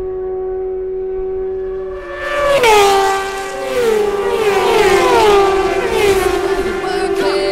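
Racing motorcycles at full throttle passing on the main straight. A steady high engine note builds, then a loud pass about two and a half seconds in drops sharply in pitch as the bike goes by. Several more bikes follow, each engine note falling in turn as it passes.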